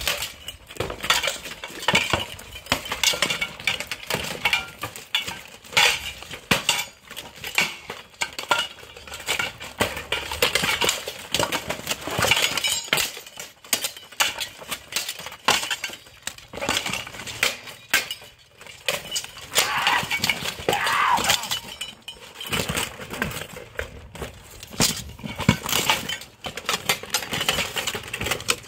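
Swords and shields striking plate armour: rapid, irregular metallic clanks and clinks, with armour plates rattling as the fighters move.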